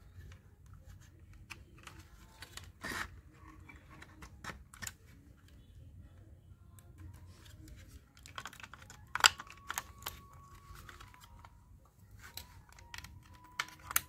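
Scattered light plastic clicks and rattles as a small 3.7 V battery and its plug are fitted into a toy remote-control plane's battery compartment, with one sharper click about nine seconds in.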